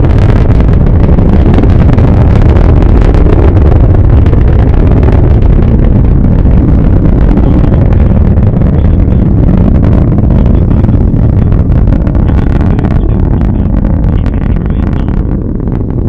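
Northrop Grumman Antares 230 rocket's first stage, two RD-181 engines at full power during ascent, heard from about two miles away as a loud, deep rumble with crackling through it. It eases off a little over the last few seconds.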